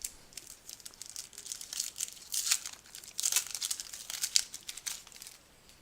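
Foil trading-card pack wrapper being torn open and crinkled by hand, a run of sharp crackles that is busiest in the middle.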